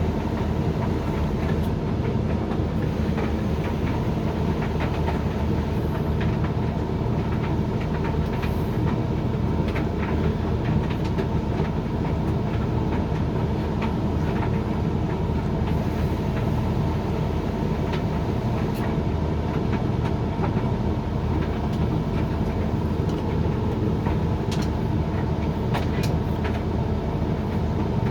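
Hoover XXL Extra Dry tumble dryer running a drying cycle: a steady rumble and hum from the turning drum and fan, with scattered light clicks as the load tumbles.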